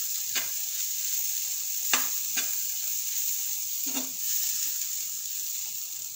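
Ground green-pea filling with spices sizzling steadily as it is roasted in a non-stick frying pan, while a steel spoon stirs it, scraping and knocking against the pan a few times.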